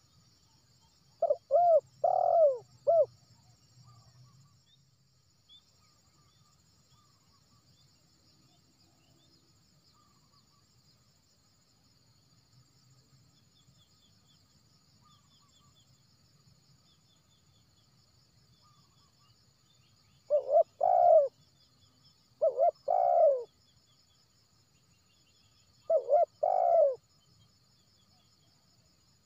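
Spotted dove cooing: one phrase of several notes about a second in, then after a long quiet gap three shorter phrases a couple of seconds apart near the end.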